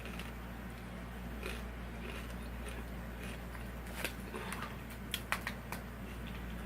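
A person chewing and crunching kettle-cooked potato chips, with a cluster of sharp crunches about four seconds in and a few more a second later, over a steady low hum.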